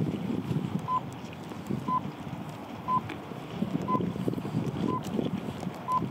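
Electronic timer beeping once a second with short, high, even beeps, typical of a race countdown. Wind buffets the microphone underneath.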